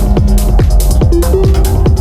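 Techno track: a steady, driving kick drum with bright hi-hats and a short, repeating, stepped synth riff.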